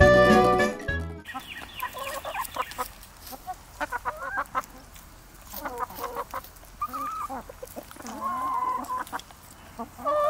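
Hens clucking in short, intermittent bouts of rising-and-falling calls. Jazzy music is louder at the start and cuts off about a second in.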